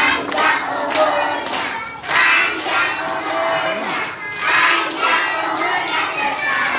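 A group of young children singing together in unison, with hand clapping.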